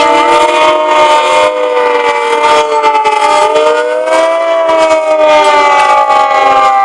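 Hand-cranked Secomak air-raid siren wailing an air-raid warning. Its several tones sag about three seconds in and climb again as the crank speed changes.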